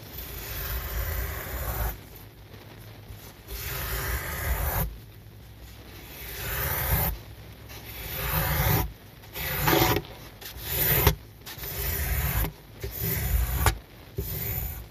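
Miniature squeegee scraping across a soaked, foamy rug, wiping off the soapy water in repeated strokes about a second long that come faster in the second half.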